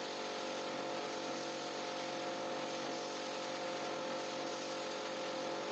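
Pressure washer spraying water onto a rug, a steady hiss of spray over the machine's even hum.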